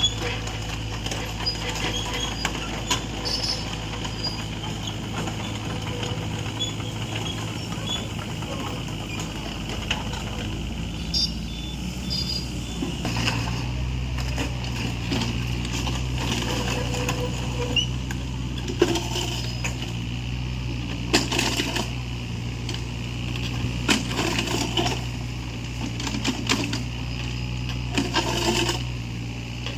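Komatsu MR30 mini excavator's diesel engine running steadily and getting louder from about halfway through, with repeated sharp metallic clinks and knocks as it works the material.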